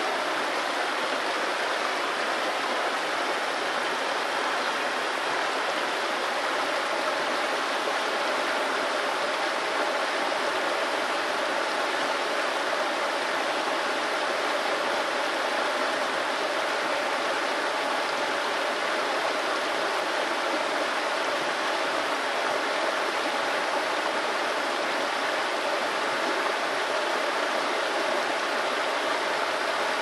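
Small river rushing steadily over a shallow rocky riffle, an even, unbroken water noise.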